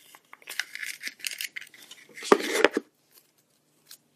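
Hands handling a small cardboard box with a metal clasp and rummaging through the folded paper slips inside it: rustling with light clicks, loudest about two and a half seconds in, then it goes quiet.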